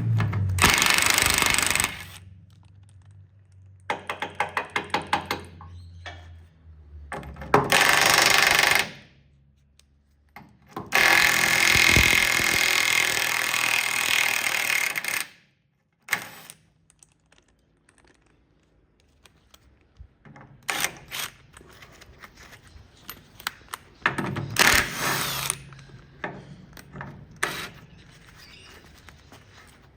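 Tool work on the nuts of a steam roller tender's brake shaft: several loud hissing bursts, the longest about four seconds, a quick run of ratchet-like clicks about four seconds in, and scattered metal knocks in the second half.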